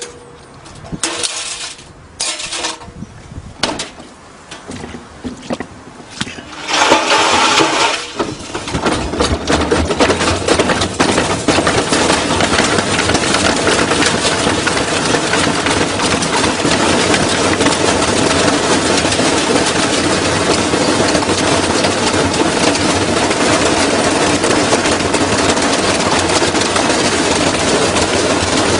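Washing machine being run to destruction: a few scattered knocks, then about seven seconds in it starts up loudly and settles into a steady, heavy mechanical running noise with dense rapid rattling.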